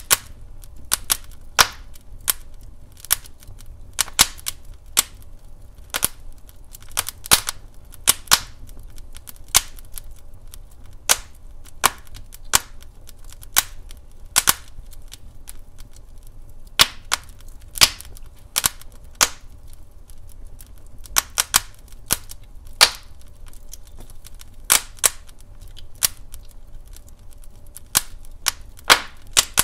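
Wood fire crackling and popping in a fireplace: irregular sharp snaps, several a second at times, over a low steady rumble of the flames.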